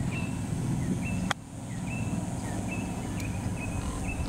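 A golf club striking the ball on a short pitch shot: one sharp click about a second in. Small birds chirp in short repeated notes throughout, over a steady low background noise.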